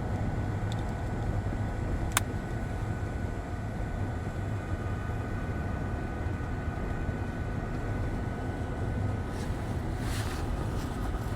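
Steady low rumble of a running engine, with one sharp click about two seconds in.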